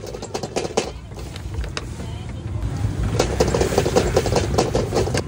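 Street ambience: motor traffic running with a steady low rumble, and dense crackling in the first second that comes back from about three seconds in.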